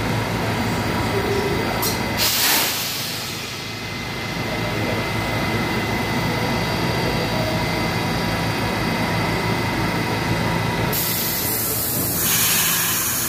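Subway train standing at a station platform after arriving, its equipment running with a steady hum and whine. A short burst of air hiss comes about two seconds in, and a longer hiss starts near the end.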